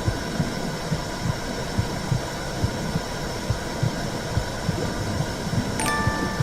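Womb sound for lulling a baby: a steady whooshing rush with a heartbeat-like low thump about twice a second.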